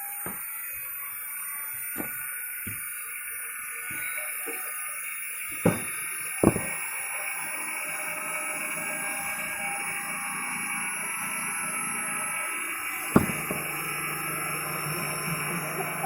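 Three sharp wooden knocks: two about a second apart, another several seconds later, over a steady background hiss. These are knocks of split firewood logs being handled or struck.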